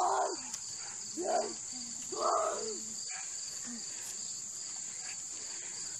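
Insects buzzing steadily at a high pitch, with three short vocal calls from a young voice in the first three seconds.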